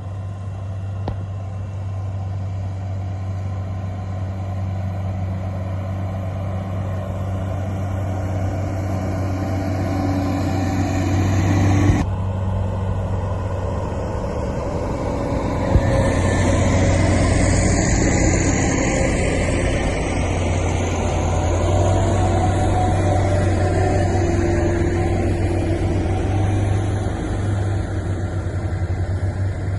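Motor grader's diesel engine running steadily with a low drone while working sub-base material. The sound changes abruptly about twelve seconds in. There is a single knock a few seconds later, and the running then grows louder and brighter.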